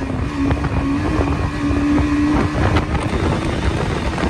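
A motor vehicle engine running with wind rumbling on the microphone; a steady engine hum fades out about two and a half seconds in, with scattered knocks.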